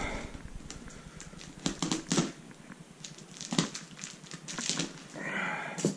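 A cardboard box being handled and opened: scattered knocks, crinkles and scrapes of cardboard and packing tape, with a short rasping sound a little after five seconds in.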